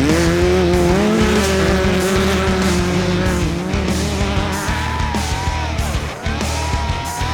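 Off-road race vehicle's engine revving hard, its pitch climbing sharply at the start and holding high, then dropping and rising again about five seconds in, over background music.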